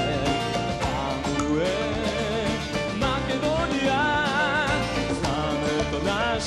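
Unplugged rock band playing live: acoustic guitars strumming under a lead melody that wavers with vibrato about four seconds in.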